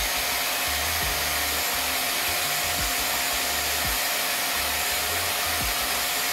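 Samono SW-MPG400 mattress vacuum running steadily: an even rushing hiss of air with a thin steady whine, and a few faint irregular ticks.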